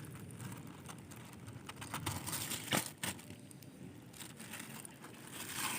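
Rustling, crinkling handling noise with scattered sharp clicks, one louder click a little under three seconds in.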